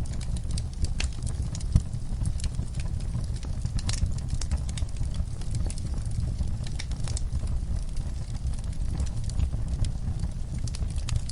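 Wood fire burning in a fireplace: a steady low rumble with frequent, irregular crackles and pops.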